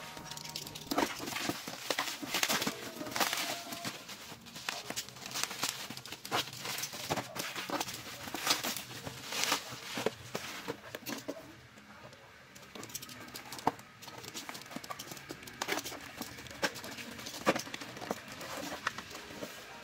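Bubble wrap and packing tape crackling and rustling as a parcel is cut open with a knife and handled, in irregular clicks and crinkles, quieter for a couple of seconds midway.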